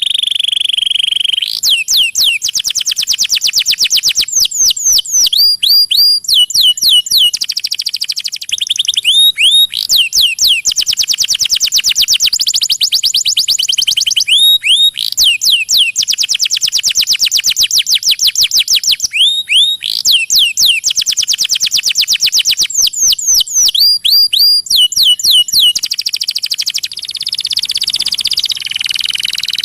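Canary song: long, fast rolling trills alternating with groups of quick rising-and-falling whistled sweeps, high-pitched and repeating every few seconds.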